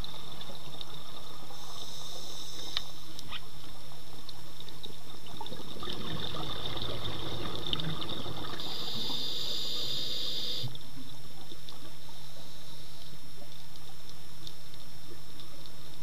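Underwater recording through a camera housing: a steady low hum and hiss, with a scuba diver's exhaled bubbles swelling into a rush from about six seconds in and stopping suddenly near eleven seconds.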